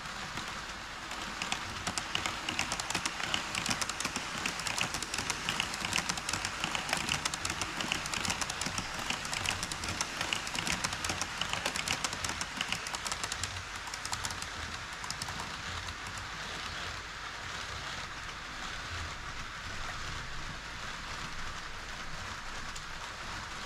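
HO-scale model train rolling on KATO Unitrack, its metal wheels making a dense clicking rattle over the track. The rattle is louder for roughly the first half and eases off after about fourteen seconds.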